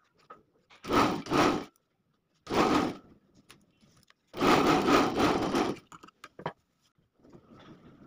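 Sewing machine stitching a zipper tape onto jacket fabric in short runs: two quick bursts about a second in, another just before three seconds, and a longer run of over a second around the middle.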